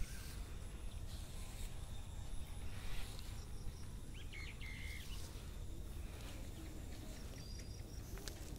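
Outdoor background noise with a steady low rumble, and a couple of short high chirps about halfway through.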